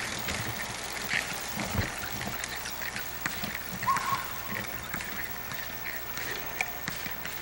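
Quiet outdoor background noise with scattered faint ticks and one short chirp about four seconds in.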